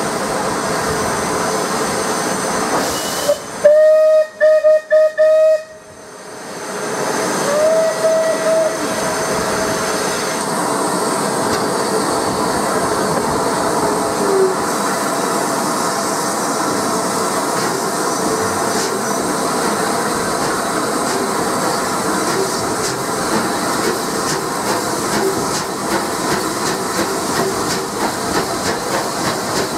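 Rebuilt Bulleid Battle of Britain class steam locomotive 34053 Sir Keith Park, heard close beside its smokebox: steady steam and running noise, with a loud whistle of about two seconds, broken by short gaps, about four seconds in. A fainter whistle follows around eight seconds, and the exhaust then settles into a regular chuffing beat as the engine pulls away.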